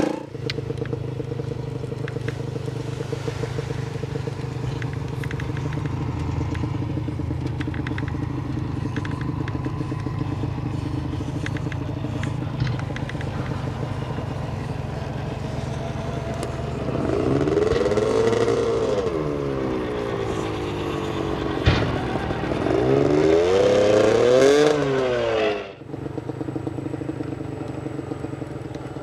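Electric motors and geartrains of RC scale crawler trucks whining steadily as they creep over sand and dirt, with small clicks and scrapes from the tyres. Past the middle the motor speeds up and slows down in rising-and-falling whines, twice, with one sharp knock between them.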